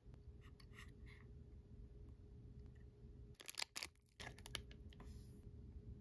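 Hands handling small plastic toy figures and their packaging close to the microphone: a few faint crackles, then a short burst of sharp crinkling and clicking a little past halfway, over a faint steady hum.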